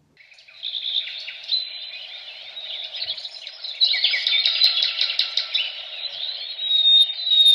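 USCCE bedside digital alarm clock sounding its birds-chirping alarm tone: recorded birdsong of many quick chirps and trills from the clock's speaker, growing louder about four seconds in.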